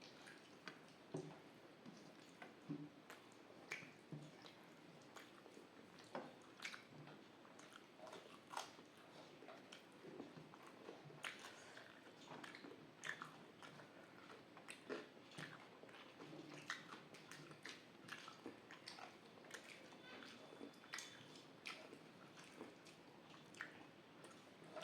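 Close-miked eating sounds: a person chewing a rice meal, with short, irregular mouth clicks and smacks, one or two every second.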